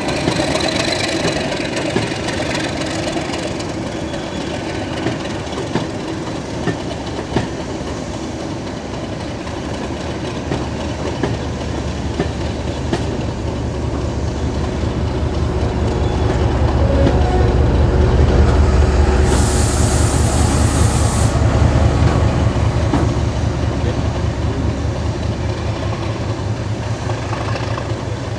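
Railway coaches rolling past with the wheels clicking over the rail joints, then a heavy diesel locomotive engine growing louder in a low, pulsing rumble as a Class 68 approaches. A brief high hiss comes about two-thirds of the way through.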